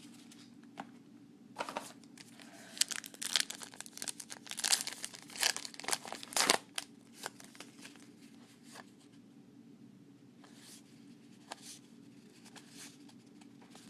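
Paper trading-card pack wrapper being torn open and crinkled: a dense run of crackling and tearing from about two seconds in to just past six seconds, then a few faint scattered rustles.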